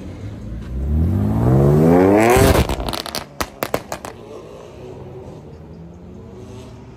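BMW performance car accelerating hard, its engine note rising steadily for about two seconds, then the driver lifts off and the exhaust fires a rapid string of pops and crackles. After that the engine runs on more quietly as the car moves away.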